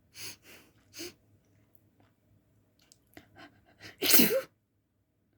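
A person sneezing uncovered: one loud sneeze about four seconds in, with a few shorter, quieter sounds before it.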